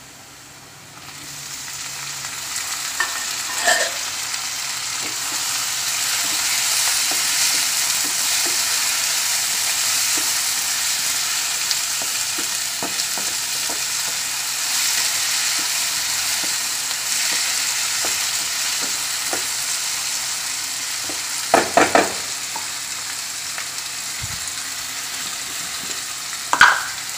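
Chopped tomatoes frying in hot oil with onions in a nonstick pan: a steady sizzle that swells about a second in as they go in, with a spatula stirring and scraping. A few sharp clacks of the spatula against the pan come about three-quarters of the way through and again near the end.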